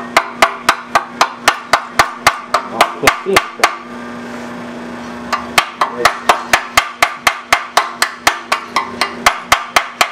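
A pointed hammer rapidly striking a fresh nickel-rod weld bead on a cast iron engine base, about four sharp metallic blows a second. The blows stop for about a second and a half near the middle, then carry on at the same pace.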